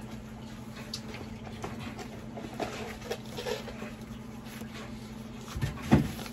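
Foam packing sheet and the fabric of a folding wagon being handled, rustling irregularly, with two dull thumps near the end, the second the loudest.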